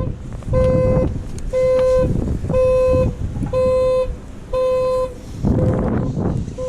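A car horn sounding in an even on-off pattern, about one half-second honk per second, as a car alarm does when triggered; the last two honks are fainter. A steady low rumble runs underneath.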